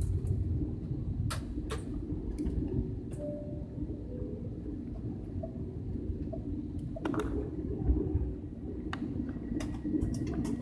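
Airliner cabin noise around takeoff: a steady low rumble of the engines and the plane's movement, with scattered small clicks and rattles from the cabin.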